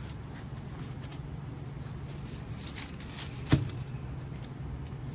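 Steady high-pitched insect chorus over a low hum, broken by one sharp knock about three and a half seconds in.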